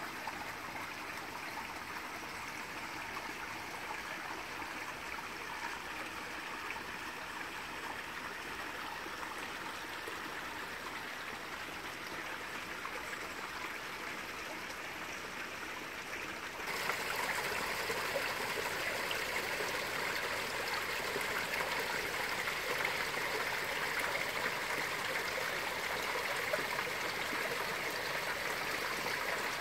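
Water trickling and splashing steadily down a small stone waterfall into a garden pond. The sound becomes louder and brighter a little past halfway through, as it is heard from closer to the cascade.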